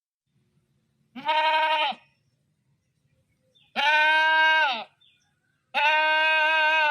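A farm animal bleating: three separate bleats of about a second each, each held on one pitch and dropping off at the end.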